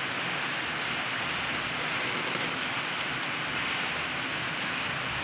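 Steady, even background hiss throughout, with a faint brief rustle of the cardboard box being opened about a second in.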